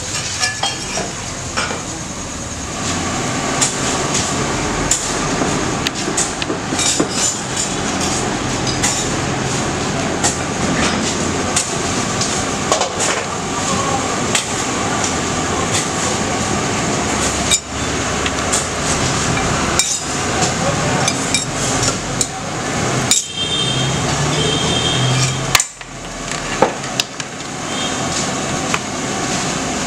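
Dosa sizzling on a griddle, with irregular sharp knocks and clinks of metal utensils on the pan and containers.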